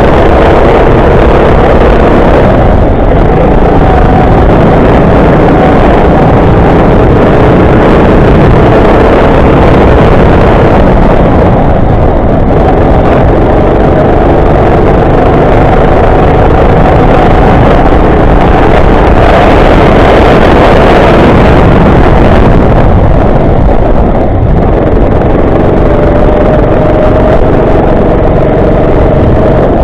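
Go-kart engine running hard and loud, its note rising and falling repeatedly with the throttle.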